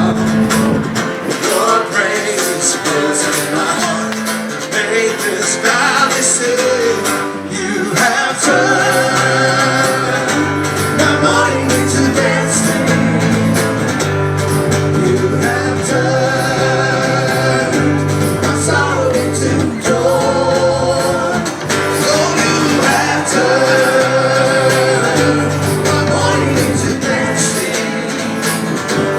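Music: a song with singing over guitar and a bass line that moves to a new note every second or two.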